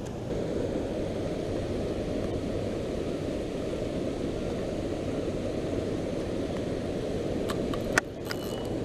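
Steady rush of turbulent water churning below a dam spillway, with wind buffeting the microphone. A few sharp clicks and a knock near the end.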